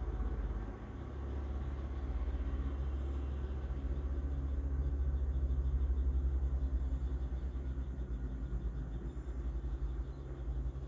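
A steady low rumble with a hum, a little louder around the middle.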